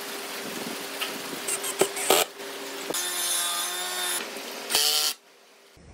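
Workshop sounds of woodworking: a few sharp wooden knocks, then a power tool running in two short bursts that cut off suddenly near the end, over a steady hum.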